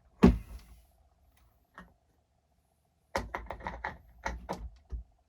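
A sharp knock, then after a pause a quick run of about eight clicks and taps: hard parts and tools being handled while an RC truck is put back together.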